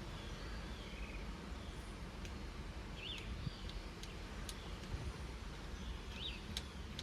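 Birds chirping a few times over a steady low background rumble, with several light clicks.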